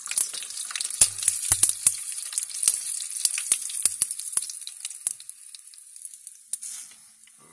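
Battered green tomato slices deep-frying in hot oil: a steady sizzle with many sharp pops and crackles, dying down near the end.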